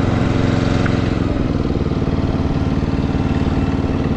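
Riding lawn mower's engine running steadily with the hood open, its note shifting once about a second and a half in. It smokes a little, which the owner takes as a sign that it burns some oil.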